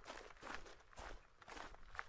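A hiker's footsteps on a gravelly bush track, about two steps a second at a steady walking pace.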